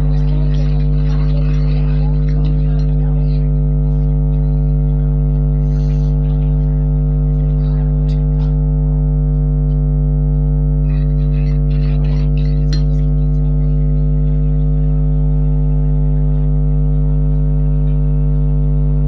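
Loud, steady electrical hum, a low buzz with a stack of even overtones that never changes, with faint scattered clicks and rustles now and then, busiest near the start and again about two-thirds of the way in.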